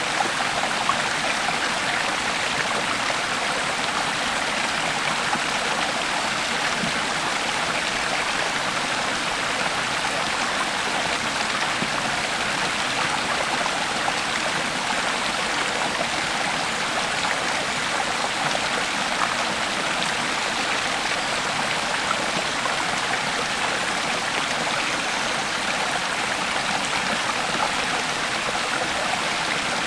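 Creek water flowing over rocks, a steady babbling rush with small splashes and gurgles throughout.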